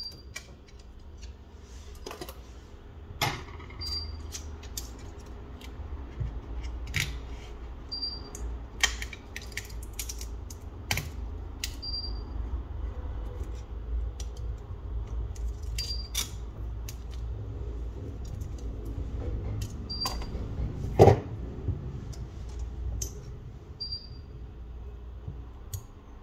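Light clicks and taps of small tools and plastic and metal phone parts being handled on a work surface while a Samsung Galaxy A03s smartphone is taken apart. The clicks are irregular, with one sharper knock about three-quarters of the way through. A faint short high chirp repeats about every four seconds.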